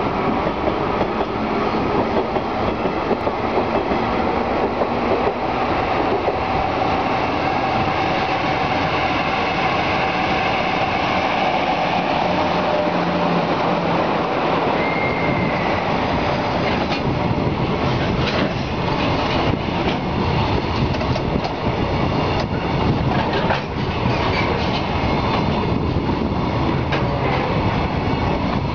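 EF66 electric locomotive hauling a container freight train slowly past, with a continuous heavy rumble of steel wheels on rail. A brief wheel squeal sounds near the middle, and the container wagons clack over the rail joints in the second half.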